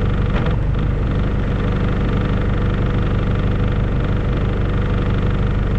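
Enclosed lifeboat's engine idling steadily, a low even drone. A brief clatter comes about half a second in.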